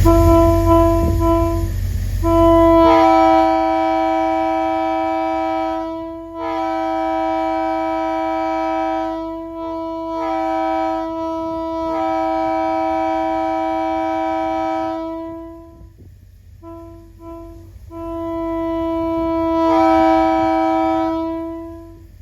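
Multi-chime locomotive air horn sounding a chord of several steady notes: a few short toots, a long blast of about twelve seconds in which the upper notes cut out and come back while the low note holds, two more short toots, then a final long blast.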